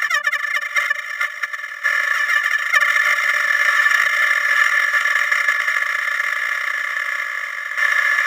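A 'wha wha' sound effect sped up so far that it merges into one continuous high-pitched squealing buzz with no low end. Its texture shifts about two seconds in and again near the end, as the sped-up loop restarts.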